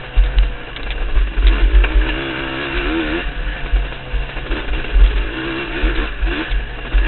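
Two-stroke Yamaha YZ125 dirt bike engine running on a woods trail, its pitch rising and falling as the throttle is worked on and off, with repeated heavy low thumps.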